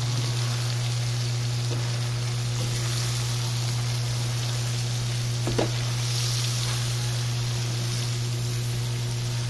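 Chicken pieces, green chili peppers and cauliflower sizzling in oil in a pan, a steady hiss, over a low steady hum.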